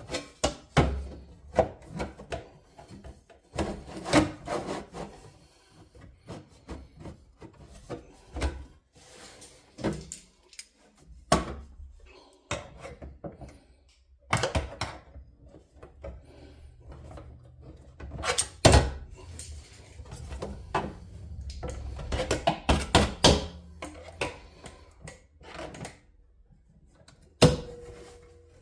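Sheet-metal fabrication noises: irregular knocks, taps and clatter with scraping in between, as the repair panel is handled and worked. A low hum runs beneath the middle part.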